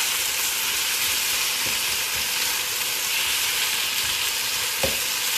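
Steady frying sizzle from a hot pan with cabbage just added to sardines and petai, with one short knock near the end.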